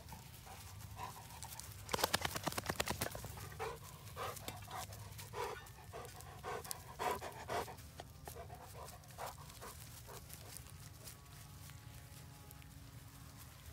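A dog panting: a quick rapid run about two seconds in, the loudest part, then slower, irregular breaths that fade out over the next several seconds.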